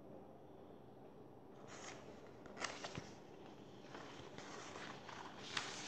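Paper pages of a picture book being flipped by hand: soft rustling that starts about two seconds in, with a few sharp paper snaps.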